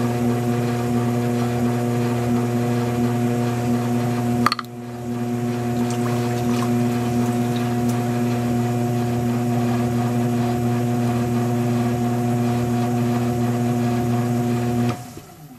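Electric potter's wheel motor running with a steady hum, broken by a click about four and a half seconds in; near the end the hum falls in pitch and fades as the wheel slows.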